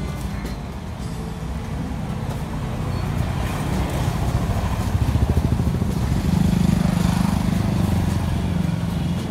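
Motor vehicle engine running close by, a low steady drone that grows louder about halfway through and holds there.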